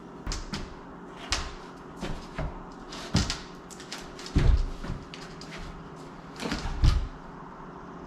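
Knocks and thumps of a worn exterior door being handled and shifted about, about eight separate bumps with the heaviest about four and a half seconds in and again near seven seconds.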